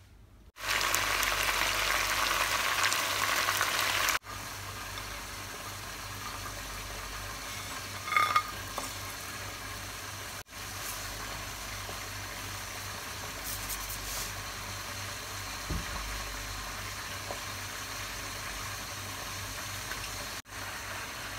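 Water with whole spices and oil heating in a pan on the stove, a steady hissing simmer toward a boil. It comes in several stretches broken by abrupt cuts, louder for the first few seconds, with a brief ringing sound about eight seconds in.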